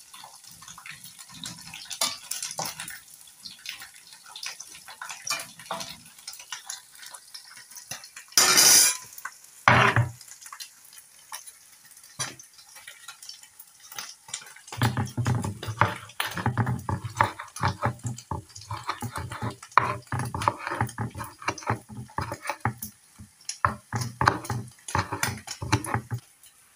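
A spoon scraping and turning small fish in a frying pan of hot oil, the oil sizzling under it, then two loud clatters about eight and ten seconds in. From about fifteen seconds in, a kitchen knife chops tomatoes on a wooden cutting board in quick repeated strokes, each with a dull knock from the board.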